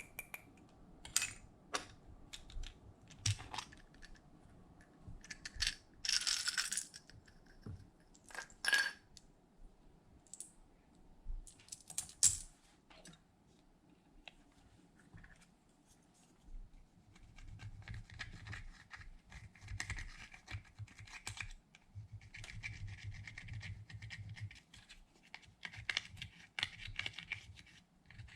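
Slime being kneaded and squeezed by hand, making sharp sticky clicks and crackles. The clicks come scattered at first, then turn into longer stretches of dense crackling a little past halfway.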